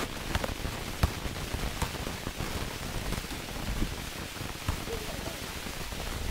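Steady wind rushing over the microphone, with a few sharp knocks of a basketball bouncing on paving tiles, the loudest about a second in.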